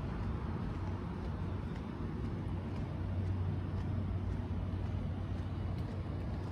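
Steady low hum over a broad background rumble: outdoor urban ambience at a car pickup area.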